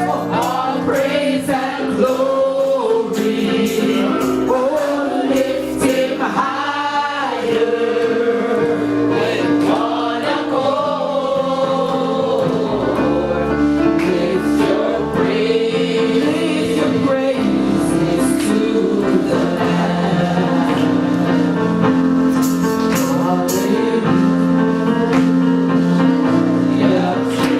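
Gospel song sung by a choir and soloist over sustained keyboard chords, with some drum or cymbal hits.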